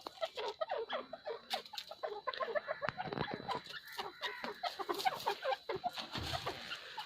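Teetar (grey francolin) giving a rapid run of short clucking calls, with no long pauses.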